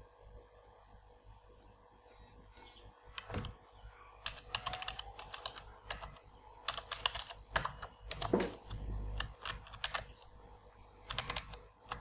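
Typing on a computer keyboard: short runs of keystrokes with pauses between them, starting about three seconds in.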